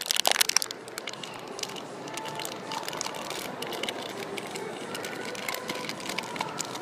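Foil blind-bag packaging crinkling as it is handled, briefly at the start, then a steady background hiss with a few faint scattered tones.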